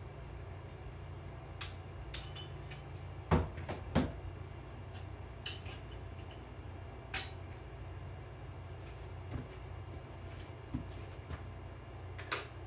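Clean dishes and utensils clinking and knocking as they are put away, with two louder knocks about three and four seconds in and scattered lighter clicks after. A steady low hum runs underneath.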